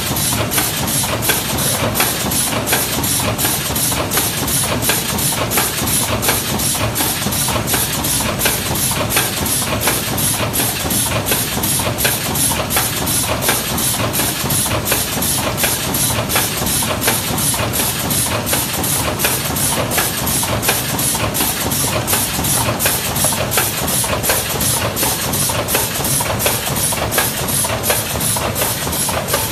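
Tetra Pak-style filling machine for 200 ml juice cartons running steadily: a continuous mechanical hum with a regular click about twice a second, the beat of its carton cycle.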